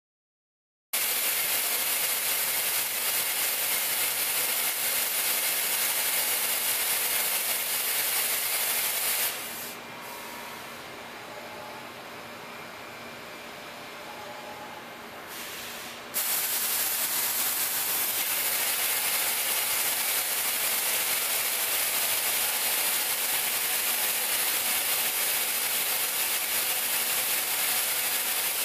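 Chevalier 2040MV vertical machining center running: a steady hiss with a low hum underneath. It cuts in about a second in, drops to a quieter level for about seven seconds near the middle, then comes back at full level.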